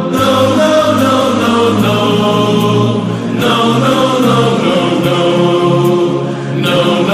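Background music: chanted singing in several voices over a steady beat.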